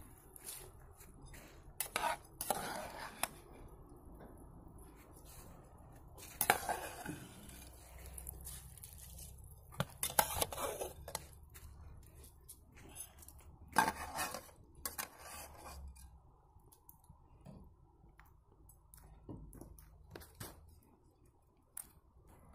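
Metal utensils, a skimmer and a bowl, clinking and scraping against a kazan cooking pot in about a dozen separate short clatters.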